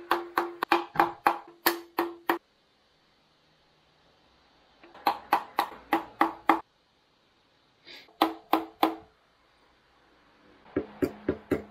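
Mallet tapping a paint scraper into the seam between the oil sump and the engine block to break the gasket seal. There are four runs of quick taps, about five a second, each tap with a short ringing tone.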